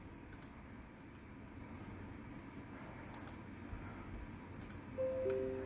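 A few faint computer mouse clicks on the taskbar eject menu, then near the end Windows' falling two-note device-disconnect chime as the USB flash drive is ejected.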